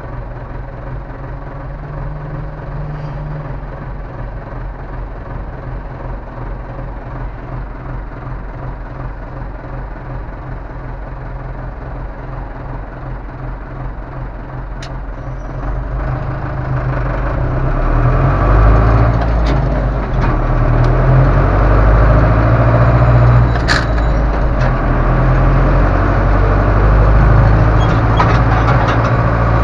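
Ursus C-385 tractor's four-cylinder diesel engine heard from inside the cab, running steadily at idle. About halfway through it grows much louder and stays up as the tractor pulls away.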